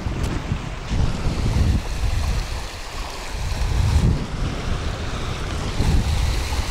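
Wind buffeting the microphone in uneven gusts, over the steady rush of river water running over a riffle.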